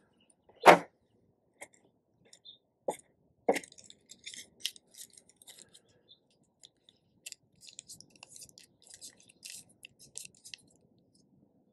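Tissue paper crinkling and rustling under fingertips as it is pressed over a plastic shotgun-style salt cartridge, in many small crisp crackles. A sharp knock comes about a second in, with two lighter knocks a couple of seconds later.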